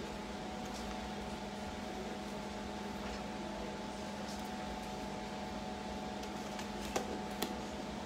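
Steady mechanical hum of a running kitchen appliance, with a couple of light clicks about seven seconds in.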